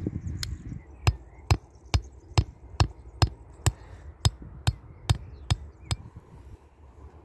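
Claw hammer striking a bent steel wire stake to drive it into the soil: about a dozen sharp metallic taps at roughly two a second, stopping about five and a half seconds in.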